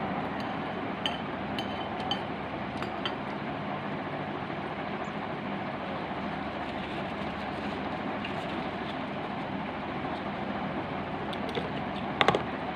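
Metal spoon clinking against a glass bowl: a few light clinks in the first three seconds, then a louder quick clatter of clinks that rings briefly near the end, over a steady rushing background noise.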